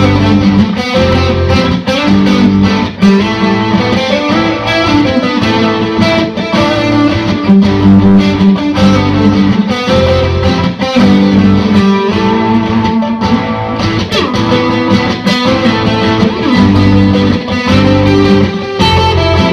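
Background rock music led by guitar, with a steady beat.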